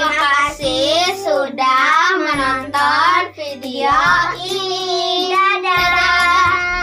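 Children singing a song together.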